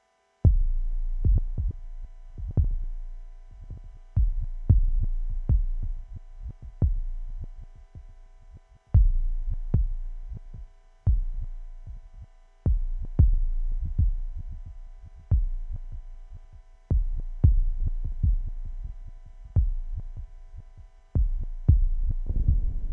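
Dark ambient hardware synthesizer music: deep, booming low pulses repeat about every two seconds, with lighter hits between, over a faint steady drone of sustained higher tones.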